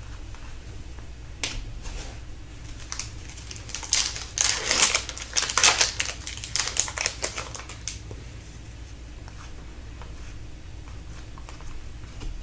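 Hockey card pack wrapper being torn open and crinkled while the cards inside are handled: a run of quick crackling and rustling noises, busiest in the middle, over a faint steady hum.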